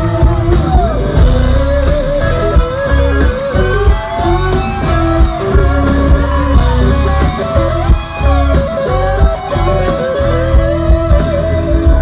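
Live country band playing loud through a concert PA, electric guitars to the fore, with a melody line sliding and bending in pitch.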